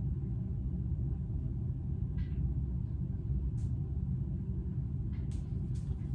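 Steady low rumble of a running machine, with a few faint, short taps scattered through it.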